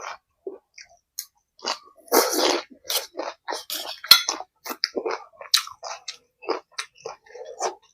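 A person chewing and biting food close to the microphone: a quick run of short wet mouth smacks and crunches.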